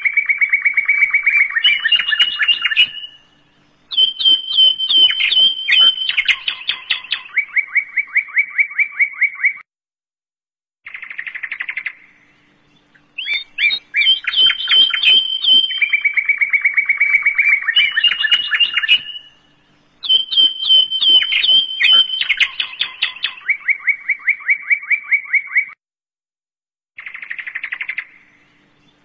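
A songbird's chirps and fast, evenly pulsed trills, played as a looped recording that repeats the same phrases about every sixteen seconds. Brief gaps of about a second fall near the middle and near the end.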